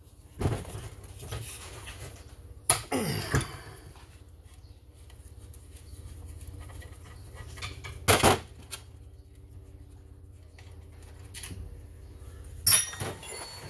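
Screwdriver work on a vintage Stihl 031AV chainsaw: screws being turned out of its housing, with scattered clicks and knocks of the tool and the loosened cover parts against the saw, over a low steady hum. The sharpest knocks come about three seconds in, about eight seconds in and near the end.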